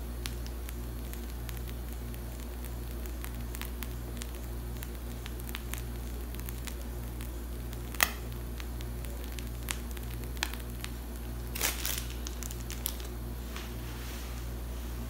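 A steady low hum with a slow pulsing throb, with faint squishes and scattered small clicks from whipped cream being piped out of a pastry bag. A sharp click about 8 seconds in and a short crackle around 12 seconds stand out.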